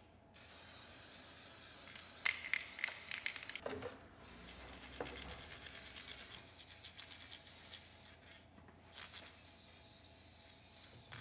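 Aerosol spray-paint can spraying in bursts, a faint hiss that breaks off about four seconds in and again briefly near eight seconds before resuming. A few light clicks come in the first half.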